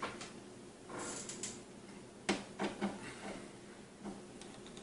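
Hand screwdriver working the screws out of the mount on a monitor's plastic back, with small metal clicks and taps. A cluster of sharp clicks comes about two seconds in, among lighter ticks and a brief rustle.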